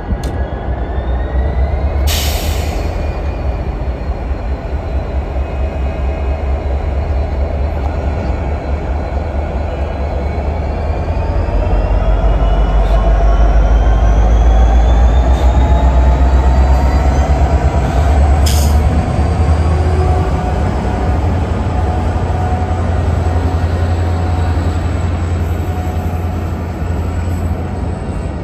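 Union Pacific GP60 and GP40-2 locomotives' EMD two-stroke V16 diesels running as a slow freight train passes, with a heavy low rumble that is loudest about halfway through. Over it, steel wheels squeal in high tones that slide slowly up and down in pitch, and two brief sharp sounds come about 2 seconds and 18 seconds in.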